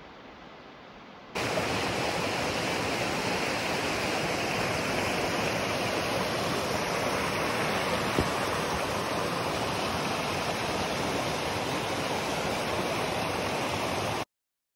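A snowmelt mountain stream rushing over rocks close to the microphone, a loud, steady rush of water. It comes in suddenly after a second or so of fainter hiss and cuts off abruptly near the end.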